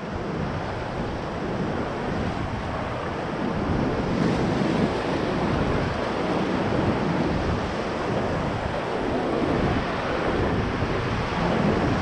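Whitewater river rapids rushing and churning around a paddle raft in a steady wash of noise.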